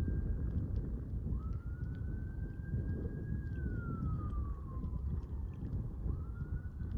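Wind buffeting the microphone as a low rumble, with a faint siren wailing behind it: its pitch rises, holds, slowly falls, then rises again near the end.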